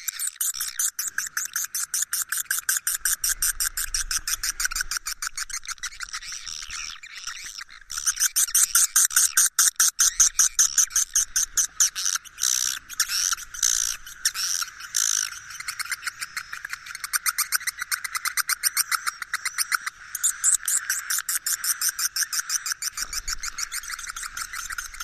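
Recorded edible-nest swiftlet calls: a dense, rapid twittering chatter of high chirps with nothing in the low range. This is a swiftlet roosting lure ('suara inap') played to draw swiftlets in to roost. It grows louder for several seconds in the middle.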